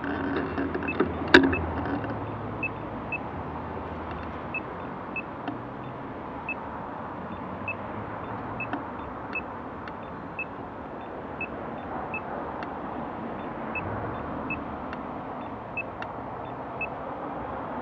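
Steady wind and rolling noise of travel on the move, with a sharp click about a second in. A faint, short, high chirp repeats at uneven intervals of about half a second to a second.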